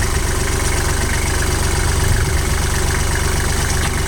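Engine idling steadily, an even low rumble.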